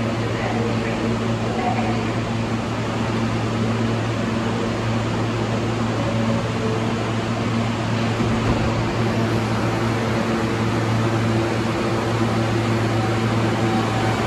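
Steady low hum of ventilation machinery: a constant drone with a fainter higher tone over it and an even hiss.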